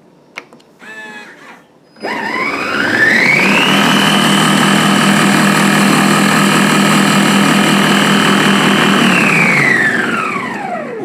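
Moulinex Cuisine Companion food processor motor at speed 12, chopping parsley in the mini bowl. It spins up about two seconds in with a rising whine, runs steadily at full speed, then winds down with a falling whine near the end.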